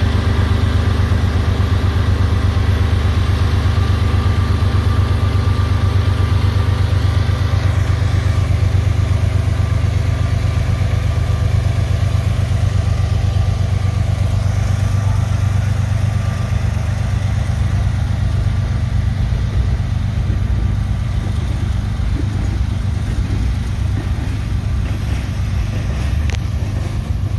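A lash-up of five Norfolk Southern GE diesel-electric locomotives passing slowly at close range, their engines giving a deep, steady pulsing rumble. Near the end the locomotives move off and the sound eases a little as the first covered hopper cars roll by.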